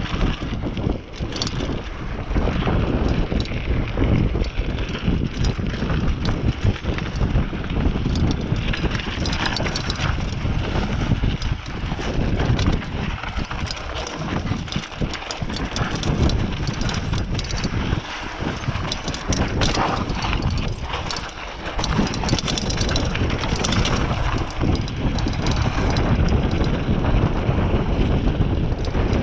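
Mountain bike rolling fast down a dirt trail: knobby tyres on dirt and the bike rattling and knocking over rough ground, with heavy wind rumble on the microphone.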